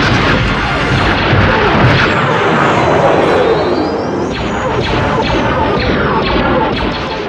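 Sci-fi space-battle sound effects over orchestral score: laser-cannon blasts and explosions with starfighters flying past. About four seconds in, a rising whine comes in with a quick run of repeated shots.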